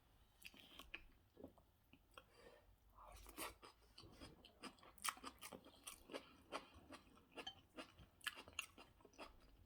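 Faint, close-up chewing of a mouthful of rice and goat meat stew, a quick run of small mouth clicks that grows denser from about three seconds in.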